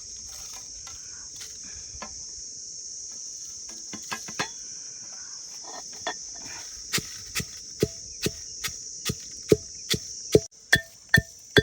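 Whole dried red chillies being pounded by hand. The sharp knocks start sparsely about four seconds in, then settle into a steady beat of about two a second that grows louder. Under it runs a steady, high chirring of insects.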